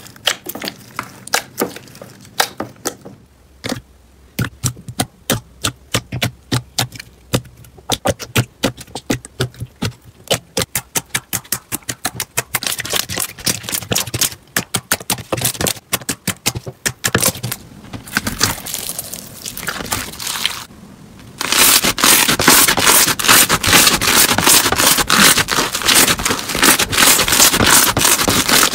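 Hands squeezing and kneading slime: a run of sharp clicks and pops, several a second, then, about two-thirds of the way in, a switch to dense, loud, continuous crackling.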